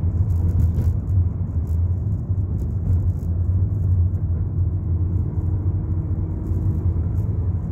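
Car driving heard from inside the cabin: a steady low engine and road drone with faint light rattling.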